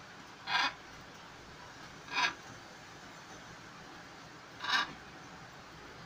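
Tarantula hissing: three short, raspy hisses, each about a quarter second long and spaced roughly two seconds apart.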